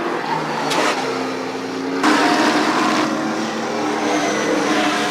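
Late-model stock cars running at speed on a short oval, several engines at high revs with overlapping pitches, changing abruptly about two seconds in.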